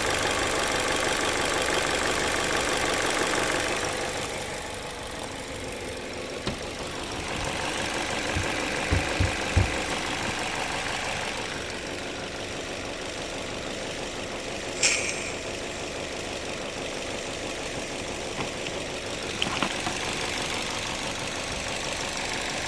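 Car engine idling with the electric radiator cooling fan running, the fan cutting out about four seconds in and leaving the engine idling on its own; a few light knocks and a click come later.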